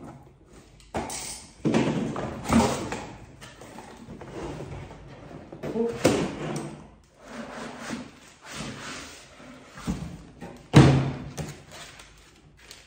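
A cardboard laptop box being cut open and handled: scraping, rustling and knocks of cardboard and foam packing, with a sharp thump about eleven seconds in, the loudest.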